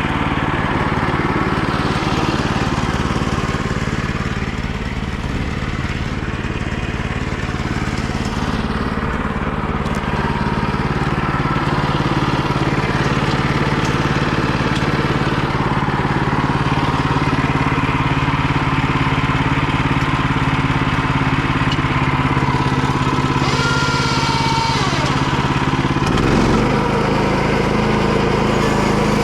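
The small gasoline engine of a homemade sawmill running steadily, with its engine note changing a few seconds before the end.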